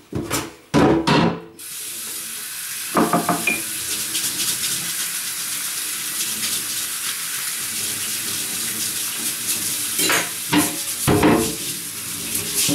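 Kitchen tap turned on about a second and a half in, water running steadily into the sink, with a few clatters of dishes.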